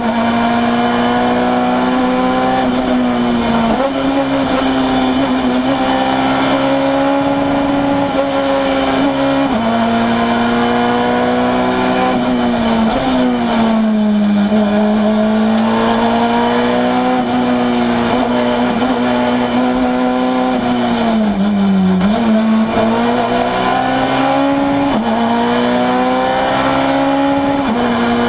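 Citroën C2 R2 Max rally car's four-cylinder engine heard from inside the cabin, pulling hard through the gears on a stage. Its pitch climbs and drops sharply at several gear changes, and twice it sags lower and climbs back as the car lifts off and accelerates again.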